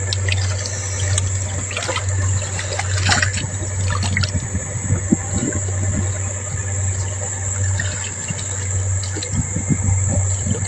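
Water running and gushing steadily, with a continuous high-pitched insect drone behind it.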